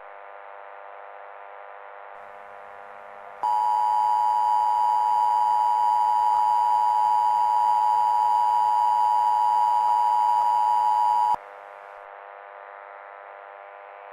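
Emergency Alert System attention tone: a loud, steady electronic tone held for about eight seconds, starting a few seconds in and cutting off abruptly. A faint steady hum runs underneath.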